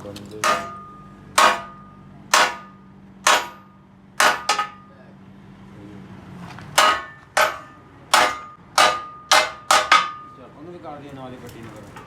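A hammer striking metal again and again, each blow ringing with a metallic clang. Five blows come about a second apart, then after a short pause a quicker run of about seven. A low steady hum underneath stops midway.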